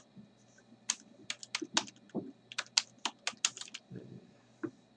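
Typing on a computer keyboard: a run of quick, irregular key clicks that starts about a second in and stops near the end.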